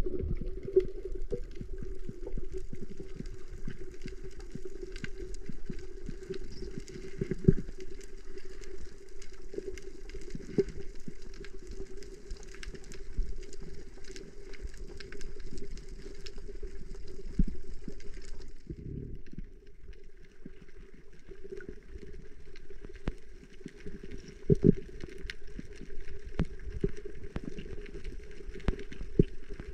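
Underwater sound during a spearfishing dive: muffled water noise with a steady low hum and many scattered clicks and knocks.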